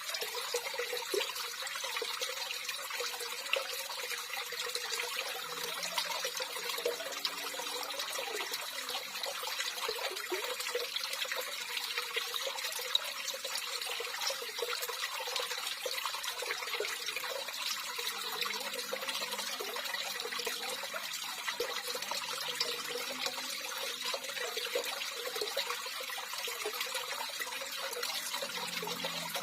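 Water running and trickling steadily with an even rushing hiss.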